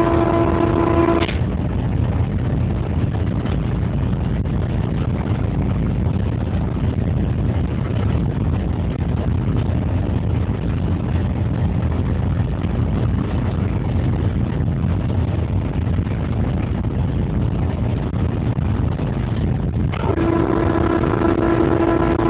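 Steady running noise inside the cab of a 2TE116U diesel locomotive under way: the engine and rolling wheels make a constant low rumble. A steady pitched signal tone cuts off about a second in and sounds again near the end.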